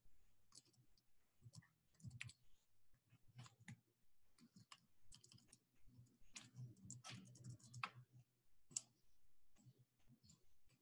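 Faint keystrokes on a computer keyboard and mouse clicks, spaced out at first, with a quick run of typing about two-thirds of the way through.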